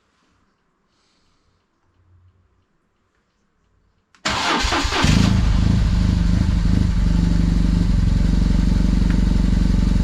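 BMW R1200GS flat-twin boxer engine started about four seconds in: a second of starter cranking as it catches, then a steady idle.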